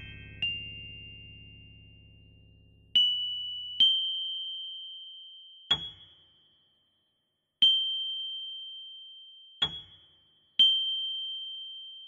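Electronic keyboard playing one high note struck about seven times at uneven gaps of one to two seconds, each ringing and fading away. Under it, a low held chord dies out in the first few seconds.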